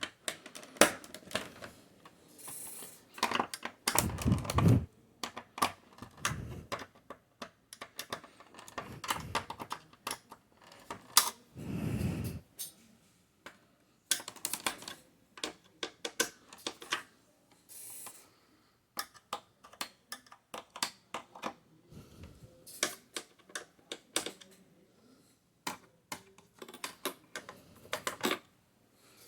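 Irregular small clicks and taps of a screwdriver and hands working on the screws and parts inside a desktop computer's chassis, with a louder, duller knock about four seconds in and another about twelve seconds in.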